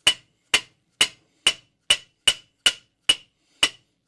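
Soft-faced hammer lightly tapping a BMW R25/3 camshaft home into its ball bearing seat in the aluminium engine case: nine even taps, about two a second, each with a short metallic ring. The ring is the metallic stop of the bearing's outer ring, which shows the camshaft is seated correctly.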